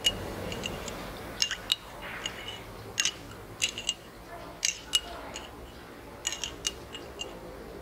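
A metal spoon clinking against the inside of a glass of drink as it is stirred, in irregular clusters of sharp, briefly ringing taps.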